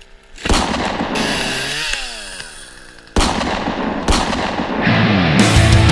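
Two sudden booming hits, each fading away, the first followed by a pitched tone sliding downward. Heavy rock music with a driving beat starts near the end.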